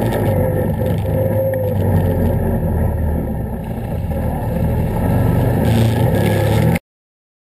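Can-Am ATV engine running while the machine is ridden: a steady drone whose pitch shifts a little, cutting off abruptly near the end.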